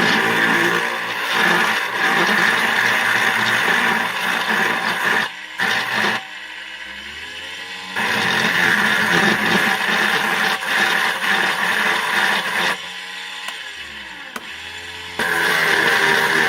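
Small electric motor of a mini table saw / battery-nickel grinder running with a high whine, in three stretches. It drops off twice, the pitch sliding down as it slows, and starts up again each time.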